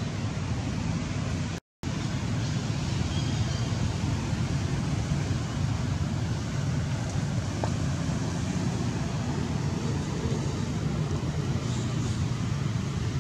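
Steady low rumble of outdoor background noise, with no distinct animal calls; the sound cuts out completely for a moment just under two seconds in.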